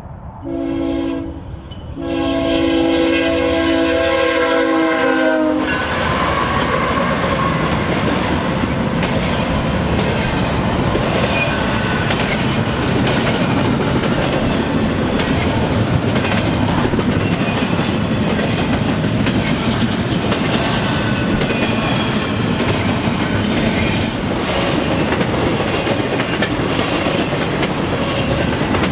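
A freight locomotive's multi-chime air horn sounds a short blast and then a long blast of about three and a half seconds, the closing short-long notes of the grade-crossing warning. The horn cuts off and the freight train carries on past, with a steady rumble of wheels and rail clicks.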